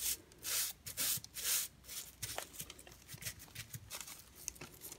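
Hands working a ball of bagel dough on parchment paper: the paper rustles and rubs in several short swishes in the first two seconds, then only faint scattered ticks.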